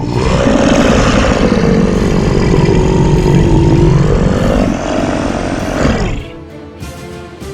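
A loud, rough rumbling noise lasting about six seconds, which stops abruptly and gives way to quieter music.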